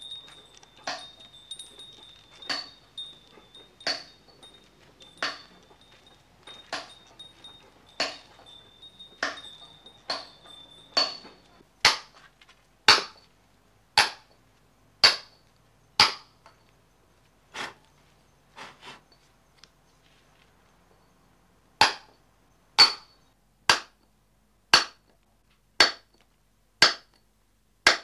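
Stonemason's hammer striking a chisel into stone, sharp clinks at a steady working pace. The strikes are fainter and slightly slower at first, and louder at about one a second from about twelve seconds in, with a brief pause near the middle before they resume.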